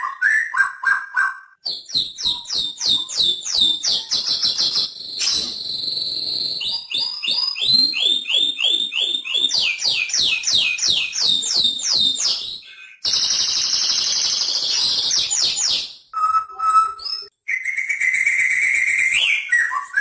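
White-rumped shama (murai batu) singing a long, varied song: fast trills of repeated sweeping whistled notes, dense rattling runs and a few clear held whistles, broken by brief pauses. A held rising whistle comes near the end.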